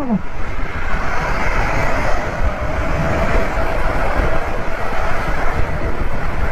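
Steady wind rush and road noise from a motor scooter riding in moving traffic, with its engine running underneath and a faint steady hum in the middle few seconds.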